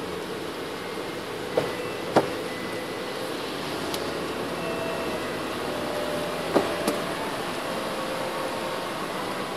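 Car cabin noise while driving on a wet road: a steady hiss of tyres and engine, broken by a few short sharp clicks, four in all.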